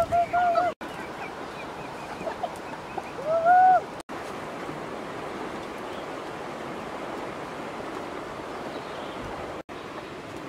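Chickens calling: a run of short clucks at the start, then one louder drawn-out squawk about three and a half seconds in. After that comes a steady rushing noise with no calls.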